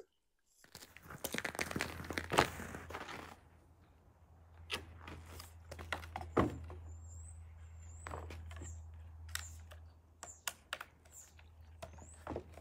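Handling noise of a chainsaw being lifted and set down: scattered clicks and knocks, busiest in the first few seconds, over a steady low hum, with a few faint high chirps.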